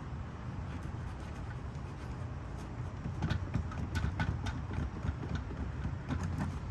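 Sharp plastic clicks and taps as the backup light housing is pried out of the tailgate by hand, starting about halfway in, over a steady low rumble.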